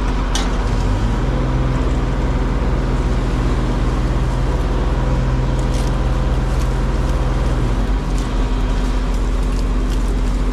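Crane's engine running steadily, speeding up about a second in as the winch hoists the load, and dropping back near the eighth second.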